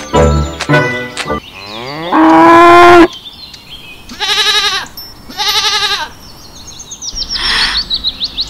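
A cow mooing once, one long loud call, followed a second later by two quavering goat bleats.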